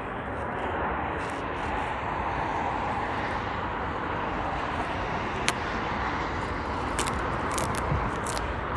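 Steady road traffic noise; in the second half, a few short sharp crackles of the plastic nursery bag around an olive sapling being handled.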